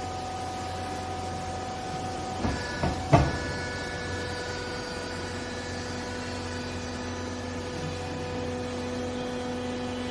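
Textile baling machine running with a steady, multi-tone hum from its motor and hydraulic pump. The tones change about two and a half seconds in, together with a few sharp metal knocks, the loudest about three seconds in.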